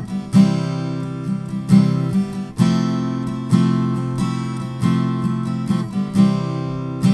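Background music: acoustic guitar playing, with a new note or chord struck about once a second.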